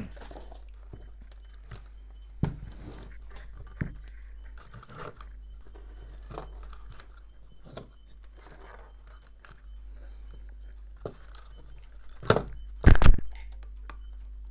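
Handling noise on a wooden workbench as a tape-wrapped transformer and its wires are shifted aside: small clicks and rustles, with two heavier knocks near the end, over a steady low hum.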